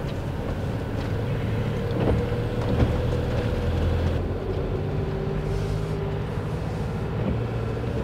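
Motorhome engine running and tyres on a wet road, heard from inside the cab while driving slowly; the engine's note changes about four to five seconds in.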